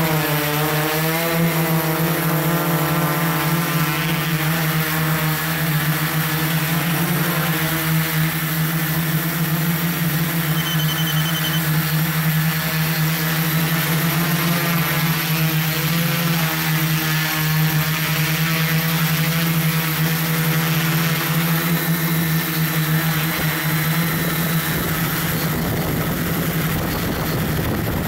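Multirotor drone's propellers and motors humming steadily, heard from the camera it carries, the pitch wavering slightly as the motors adjust their speed. A rougher rush joins in near the end.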